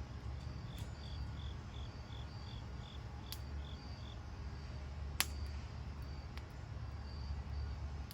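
Crickets chirping in two overlapping rhythms: one quick series of high chirps, about three a second, in the first half, and another slower steady chirp throughout, over a steady low rumble. A single sharp snap stands out about five seconds in.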